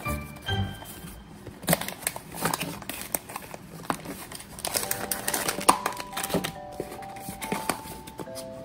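Cardboard blind box being opened by hand: flaps and a paper insert folded back and a plastic-wrapped figure handled inside, giving a run of sharp clicks, crackles and crinkling rustles.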